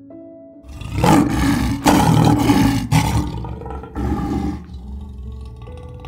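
Lion roaring four times in quick succession, heavy and rough, over background music with steady held notes.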